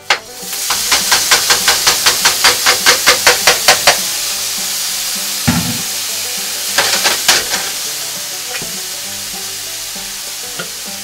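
Ground beef, still wet from rinsing, tipped back into a hot skillet, hitting with a sudden burst of sizzle that settles into a steady sizzle, slowly fading. Over it runs a quick series of taps against the pan, about five a second for some three seconds, then a thump and a few light clicks from a seasoning shaker.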